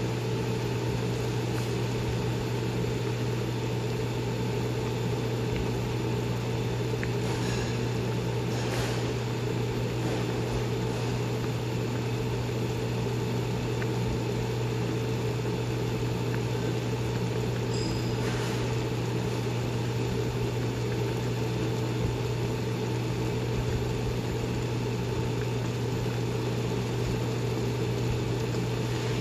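A pot of instant ramen boiling on a stove: a steady low machine hum with an even hiss over it, unchanging throughout. A few faint ticks come about a quarter and about two-thirds of the way through.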